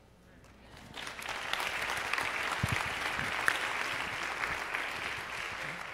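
Audience applauding. The clapping builds up over the first second, holds steady, and begins to taper off near the end.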